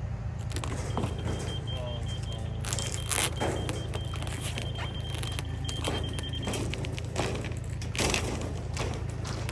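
Heavy diesel truck engine running steadily at a concrete pour, with scattered knocks and clatter over it. A broken, high-pitched beeping runs from about a second in until past the middle.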